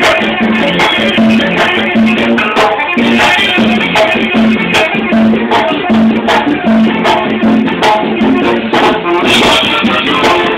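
Live Mexican banda music: a brass band playing loudly with a pulsing low bass line and steady, regular percussion strokes.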